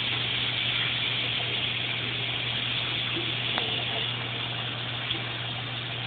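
Tap water running steadily from a bathroom sink faucet and splashing over a hand held in the stream, over a low steady hum.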